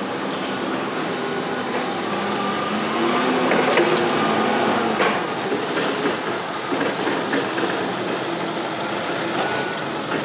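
Toyota forklift running and driving up to a flatbed trailer, a steady engine noise with a few knocks around the middle.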